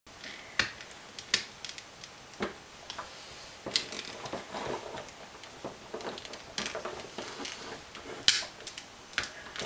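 Irregular clicks and taps of metal prongs and a hard plastic plug body being handled and fitted together, as a 30-amp three-prong dryer plug is put back together. The sharpest click comes near the end.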